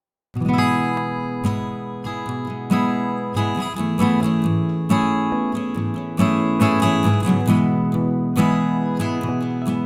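Background music: strummed acoustic guitar, starting suddenly a moment in after silence.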